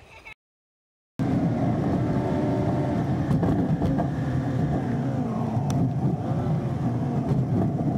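Vehicle driving along a road, heard from inside the cabin: steady engine and road noise that comes in suddenly about a second in, after a brief silence.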